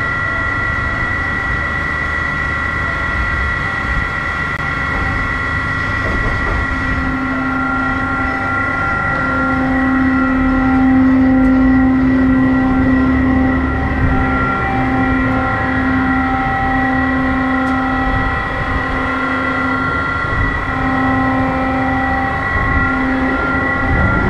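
Steady machinery hum of a HUSS Ranger ride standing in its station: a constant high whine over a low rumble, with a lower hum that starts about a third of the way in and keeps cutting in and out.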